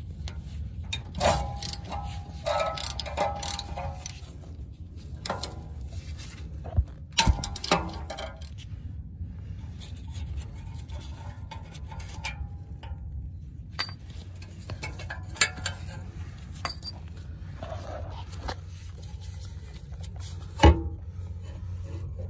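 Socket wrench loosening rusted exhaust muffler bolts: irregular ratchet clicks and metal clinks and knocks, with a sharp knock about 20 seconds in, over a steady low rumble.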